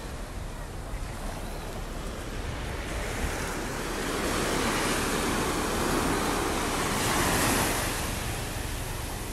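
Small ocean waves breaking and washing up on a sandy beach, a steady surf that swells louder a little past halfway through.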